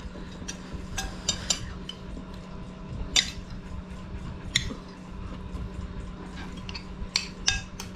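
Metal spoons clinking and scraping against ceramic plates of rice, in scattered short clicks, with soft chewing and mouth sounds, over a steady low hum.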